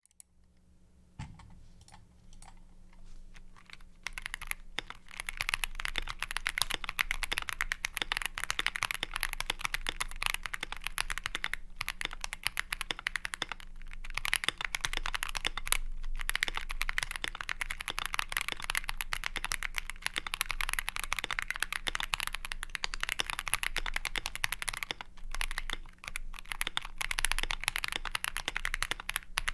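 Typing on a gasket-mounted GMMK Pro mechanical keyboard with Boba U4T tactile switches, PBT keycaps, an aluminium plate, and foam and PCB-tape mods. A few separate keystrokes open it, then fast continuous typing follows, broken by brief pauses.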